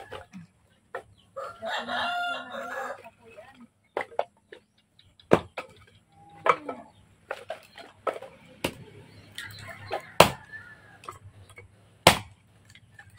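A rooster crows once, lasting about a second and a half, starting just over a second in. Then comes a series of sharp wooden knocks, spaced a second or two apart, as firewood is chopped into kindling on a block; the last two knocks are the loudest sounds. A chicken clucks in between.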